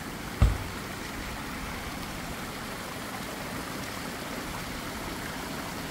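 Steady splashing of water from the many small spouts of the Hundred Fountains, a long tiered fountain wall, falling into its stone troughs. A brief low thump about half a second in.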